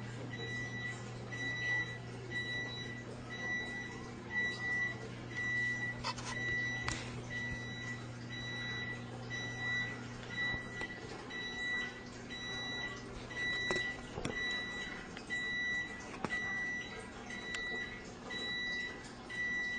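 A high electronic beep repeating evenly, about once every three-quarters of a second, over a low steady hum that fades out about two-thirds of the way through, with a few light clicks.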